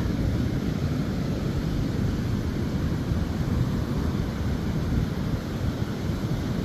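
Wind buffeting the microphone in a steady low rumble, over the wash of ocean surf breaking on the beach.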